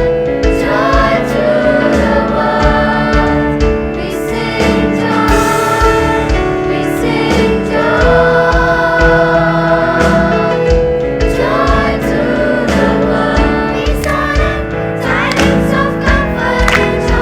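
High school choir singing in harmony, holding chords that change every second or two, over a steady percussive beat.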